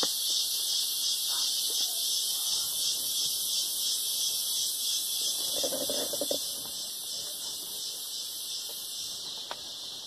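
Steady high-pitched chorus of forest insects. About six seconds in, a short, low, pulsing call from an animal rises over it.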